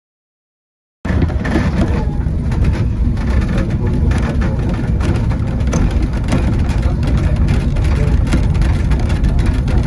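Engine of a 2ft gauge light railway train running steadily at the platform. It starts suddenly about a second in, with a heavy low rumble.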